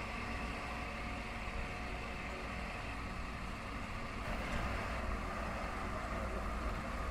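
Crane lorry's diesel engine running steadily to power its loader crane while the crane lowers a heavy standing stone.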